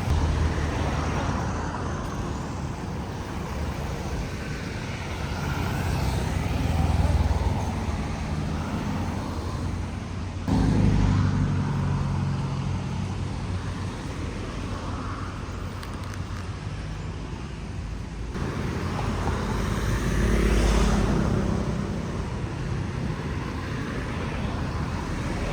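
Road vehicle running, with a steady low rumble and road and wind noise that changes abruptly twice.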